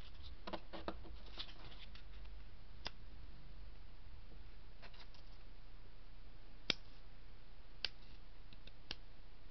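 Rotary leather punch pliers handled, then their revolving punch wheel turned by hand, clicking as it seats into its detent positions: four sharp, separate clicks, most in the second half.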